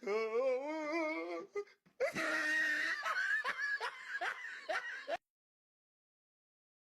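A person laughing: a wavering, warbling laugh at first, then a breathier burst of laughter that cuts off abruptly about five seconds in.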